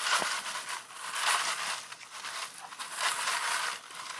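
Threshed sesame seeds and dry chaff rustling and rattling in a plastic sieve shaken back and forth, the seeds sifting through the large holes into a plastic basin below. The rustle comes in a series of swells, one or so a second, with the shakes.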